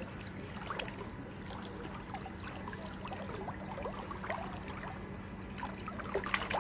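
Shallow river water sloshing and splashing around a person wading and reaching into the water, with scattered small splashes and a louder splash near the end.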